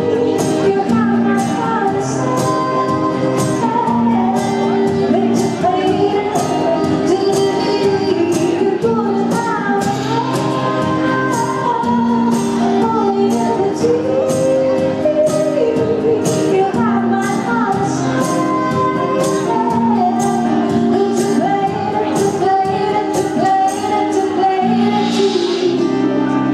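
Live band: a woman singing into a microphone over grand piano chords, with a steady percussion beat.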